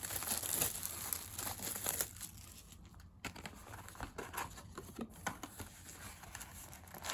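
Crinkly plastic packaging rustling and tearing as a sealed box of hockey trading cards is opened and its wrapped packs are handled. The crackling is busiest in the first couple of seconds and softer after.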